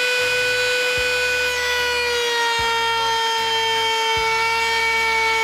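Table-mounted router running at full speed with a high, steady whine as a cedar board is fed along its bit to shape the edge; the pitch dips slightly about two seconds in.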